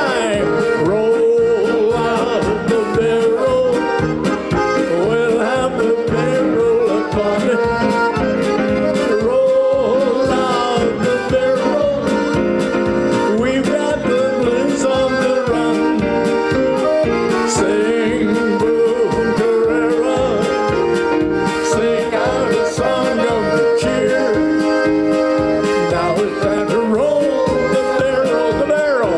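Live polka: accordion over keyboard backing, playing a steady, even beat.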